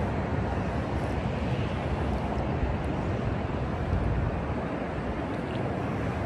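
Steady low noise, strongest in the bass, with no separate events.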